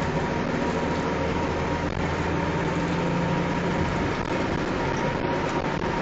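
Steady engine hum and road noise heard inside the cabin of a moving bus.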